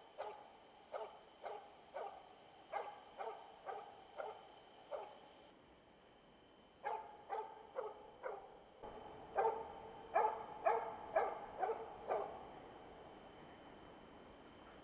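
A Jämthund (Jämtland spitz) moose dog barking from far off, faint: a run of sharp barks at about two a second, a short break, then another run that stops about three seconds before the end. This is a steady bay, the dog holding a standing moose in one place rather than chasing it.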